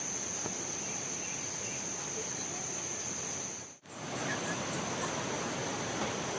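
Steady high-pitched drone of forest insects over a background hiss, cut off briefly about four seconds in; after the break the insect drone carries on over a fuller, even rushing hiss.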